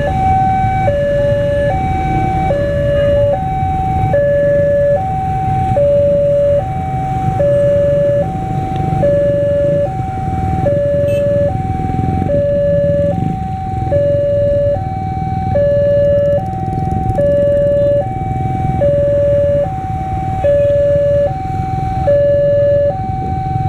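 Railroad level-crossing warning alarm: an electronic two-tone signal alternating steadily between a higher and a lower note, about one change a second, sounding while the barrier is down because a train is approaching. A low rumble of queued traffic lies underneath.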